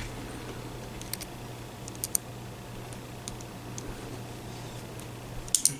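Scattered small metallic clicks of a lock pick working inside a Smith & Wesson handcuff's keyhole, with a quick cluster of sharper clicks near the end. A steady low hum runs underneath.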